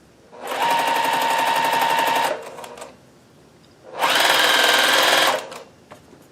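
Juki TL-2010Q sewing machine stitching with a zipper foot, sewing piped cord into a seam. It runs in two steady bursts, the first about two seconds long and the second shorter, with a short pause and a few small clicks between them.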